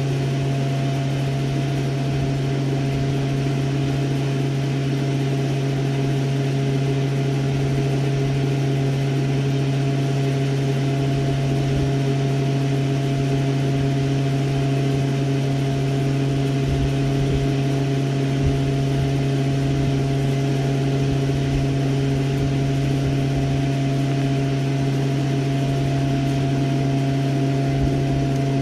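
Steady machine hum: a strong low drone with a few fainter higher tones held above it, unchanging throughout.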